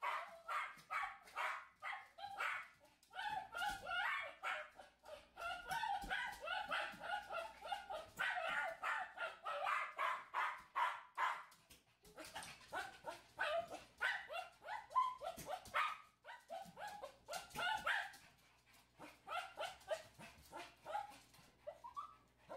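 Small dog barking rapidly and repeatedly in quick runs of short, high barks, with two brief lulls midway and fewer barks near the end. It is shut out of a ball game behind a barrier and barking to join in.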